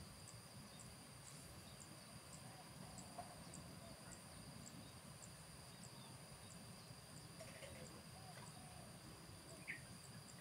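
Faint outdoor ambience: a steady high insect-like buzz with regular ticks about twice a second, a few short bird chirps, and a low steady rumble underneath.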